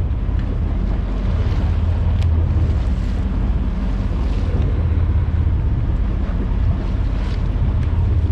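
Steady low hum of the boat's engine, with wind buffeting the microphone.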